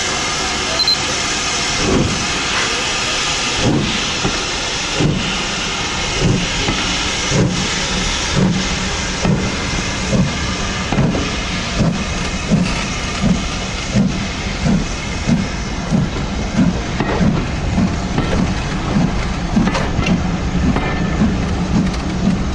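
LMS Stanier 2-6-0 Mogul steam locomotive 42968 starting its train from a standstill. A steady hiss of steam, then two-cylinder exhaust chuffs begin about two seconds in and quicken steadily as the train gathers speed.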